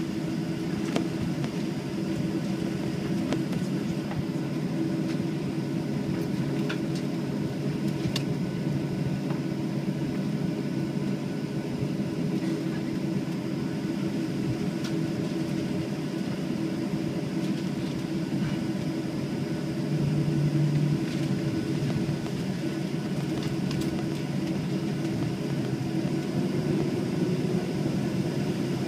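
Steady droning hum inside the cabin of a Boeing 737-700 on the ground, with a few faint clicks. The hum swells briefly about two-thirds of the way in.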